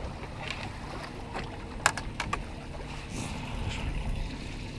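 Low steady hum of a small fishing boat's engine running slowly, with a few sharp clicks about two seconds in.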